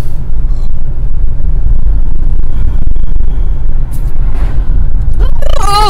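Steady low rumble of a car driving, heard from inside the cabin: road and engine noise. A voice starts just before the end.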